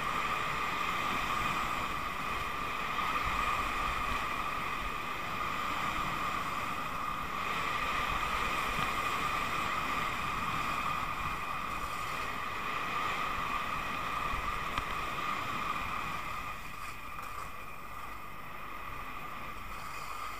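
Skis running fast over groomed snow with wind rushing over the microphone: a steady rushing noise that eases off somewhat over the last few seconds as the skier slows.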